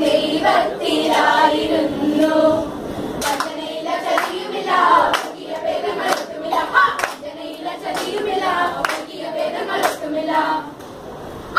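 A group of young voices singing together in chorus, with hand claps in time starting about three seconds in and repeating once or twice a second.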